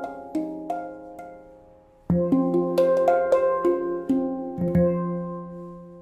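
F Equinox 10 handpan, a ten-note steel handpan tuned to F, played by hand: a few notes ring and fade, then about two seconds in the low central F3 ding is struck with a run of higher notes over it. The ding is struck again near five seconds and left to ring out, its F4 and F5 sounding with it.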